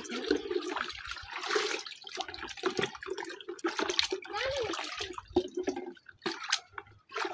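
Water sloshing and splashing in a plastic bucket as dishes and cutlery are washed by hand, in uneven bursts.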